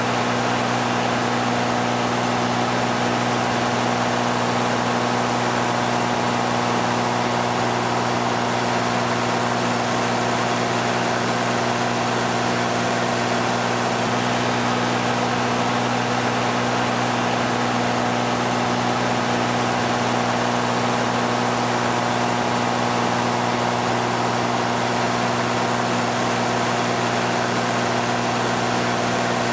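Light high-wing aircraft's piston engine and propeller running steadily in cruise, heard from inside the cabin: an unchanging low hum with a hiss over it.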